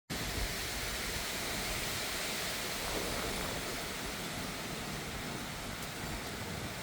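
Heavy rain falling in a thunderstorm, a steady even hiss with no thunder.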